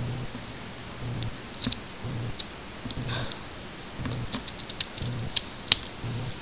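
Scissors snipping through paper and thin cardboard: a scatter of short, sharp clicks, several of the sharpest near the end.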